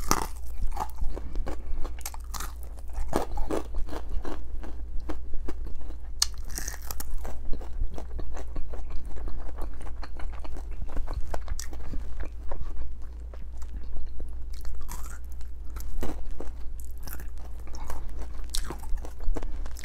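A person biting and chewing crunchy fried chicken wings, with quick, irregular crunches and wet chewing clicks throughout.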